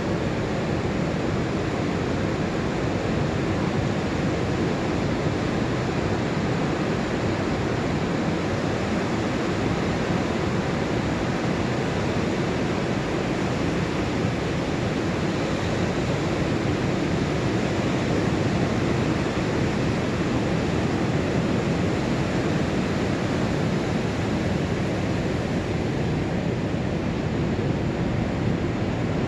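Pacific Ocean surf breaking offshore and washing up a flat sand beach on an incoming tide: a steady wash of wave noise with no single crash standing out.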